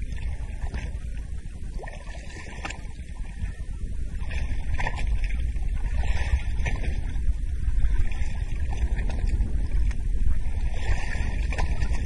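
Wind buffeting the microphone as a steady low rumble, louder from about four seconds in, with short splashes and sloshing of water as the shark is held at the boat's side.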